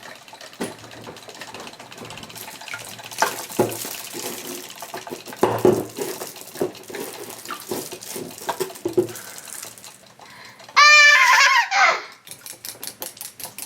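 Water splashing and sloshing in a small toy aquarium tank, with many small irregular knocks and drips. About eleven seconds in comes a loud, high-pitched child's squeal, then a quick run of clicks.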